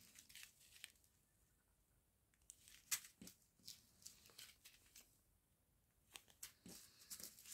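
Faint, scattered crinkling of small plastic zip-lock bags of diamond-painting drills being handled and shuffled, a few short crackles with the clearest about three seconds in.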